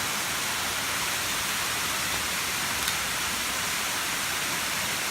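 Steady rushing hiss of Moore Cove Falls pouring at high flood flow, with a faint click about three seconds in.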